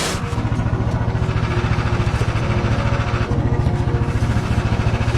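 An engine running steadily with an even, rapid pulse; a hiss in the upper range grows louder about three seconds in.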